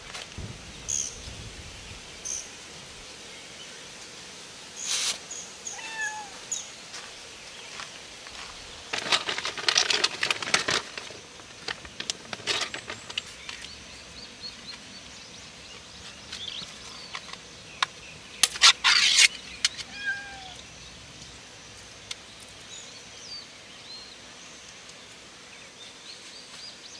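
A cat meowing now and then in short calls. There are louder bursts of rustling and handling noise about a third of the way in and again about two-thirds through, as a food bowl and mat are set out.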